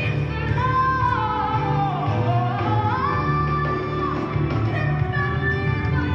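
Gospel song: a singer's melody in long notes that slide down and back up, over a steady low bass line.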